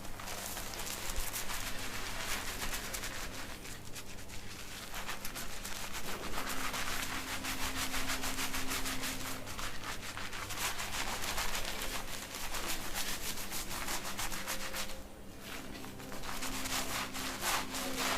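Fingers rapidly scratching and rubbing a scalp through shampooed hair in a head massage, a continuous scratchy friction sound that eases briefly about fifteen seconds in.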